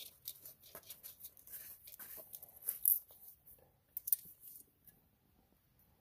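Scattered light clicks, scuffs and rustles of hands handling things up close, a little louder around three and four seconds in, stopping about five seconds in.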